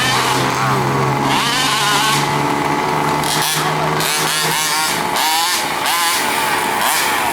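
Small two-stroke engines of 1/5-scale gas RC buggies (HPI Baja 5B) running hard, their pitch repeatedly sweeping up and down as the throttle is worked. A steadier, lower engine note runs underneath and drops away about four and a half seconds in.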